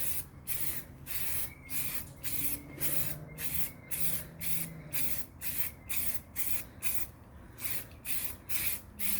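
Aerosol can of Rust-Oleum 2X Ultra Cover spray paint hissing in short bursts, about two a second, with a short pause about seven seconds in. This is a heavier second coat being sprayed onto plastic grill covers.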